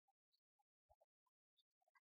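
Near silence, with a scatter of very faint short clicks.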